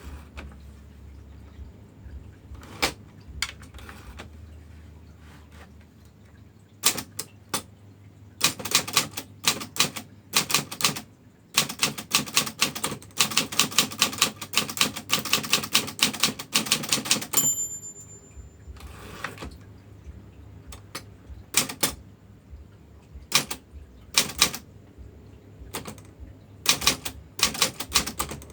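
Brother manual typewriter being typed on: scattered single keystrokes, then fast runs of clacking keystrokes from about 8 to 17 seconds in. The margin bell dings once as the runs end, then slower keystrokes follow.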